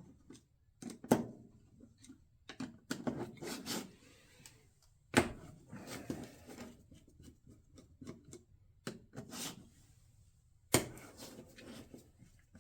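Tools and parts being handled: scattered clicks and knocks with rubbing between, the sharpest knocks about a second in, around five seconds and near eleven seconds. No motor is running.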